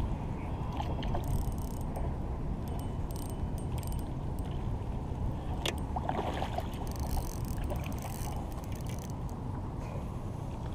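Steady low wind rumble and water lapping, with a spinning reel's handle and gears clicking and whirring at times as a hooked trout is reeled in.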